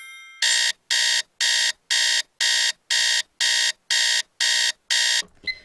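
Digital bedside alarm clock beeping, about ten short buzzy beeps at roughly two a second, until it is pressed off.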